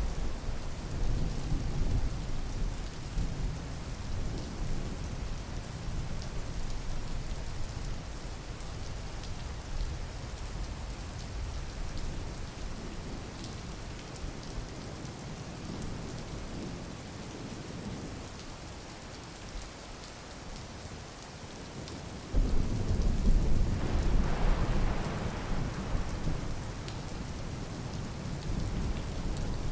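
Steady rain falling, with thunder rumbling: a low rumble in the first few seconds, and a louder peal breaking in sharply about three-quarters of the way through, then fading over several seconds.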